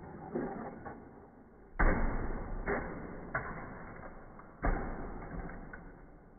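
A toy car tumbling down wooden stairs, knocking and thudding against the steps. A few light knocks come first, then a heavy thud about two seconds in, two smaller knocks, and another heavy thud about a second and a half before the end.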